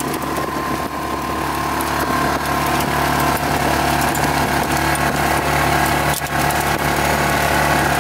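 Engine of an open side-by-side utility vehicle running at a steady pitch as it drives along, with small rattles and knocks.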